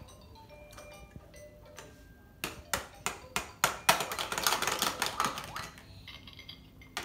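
Hard plastic toy pieces clicking and tapping against a plastic toy tea-set plate: a string of sharp knocks about three a second, then a rapid clatter. Faint electronic tones from the toy sound before the knocks and again near the end.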